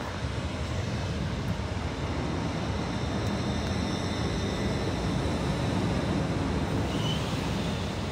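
Avanti West Coast Hitachi Evero multiple unit beside the platform, giving a steady low rumble and hum from its running equipment, with a faint, steady high whine over it.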